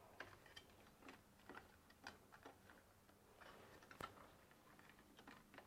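Near silence with faint, scattered clicks and ticks of cables being handled and pushed through the plastic cable latches of a monitor arm, with one sharper click about four seconds in.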